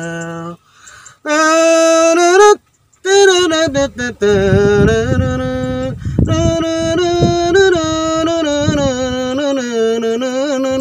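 A man singing a slow, sad ballad in long, wavering held notes, with short breaths about a second in and near three seconds.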